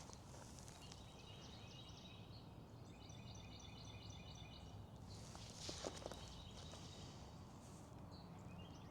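Faint birdsong over quiet open-air background: a bird repeats short, high chirping notes in quick runs, with a brief soft rustle a little past the middle.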